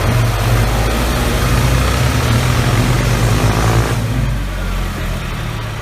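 A vehicle engine running steadily with a deep hum, fuller for the first four seconds and then easing off.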